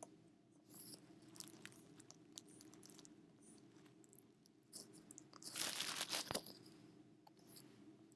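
Stylus scratching and tapping on a drawing tablet: a few short taps and a longer scratchy stroke a little past the middle, over a faint steady hum.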